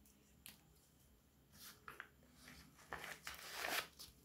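Faint metal clicks as a folding metal tool is closed in the hands, then a scratchy rustle about three seconds in as it is slid into a nylon pouch.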